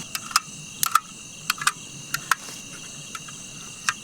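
Crickets chirring steadily in a high, continuous chorus, with about nine scattered sharp clicks and snaps.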